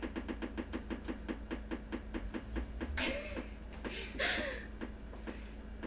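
Rapid clicking or rattling from a refrigerator, about six or seven clicks a second at first, slowing and thinning out in the second half, with two short rushing noises about three and four seconds in.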